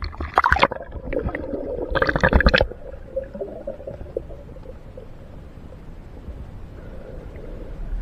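River water splashing and gurgling close to the microphone, with a busy run of sharp splashes for the first three seconds or so, then settling to a quieter, steady wash of moving water.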